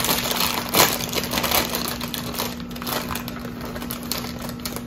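Foil-lined plastic chip bag crinkling as it is pulled open and handled, in irregular crackles with a sharper one about a second in.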